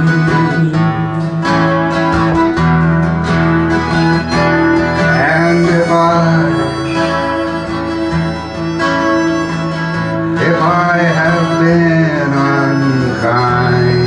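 Acoustic guitar strummed steadily with a harmonica playing a melody over it, its held notes bending in pitch: an instrumental break between verses of a slow folk song.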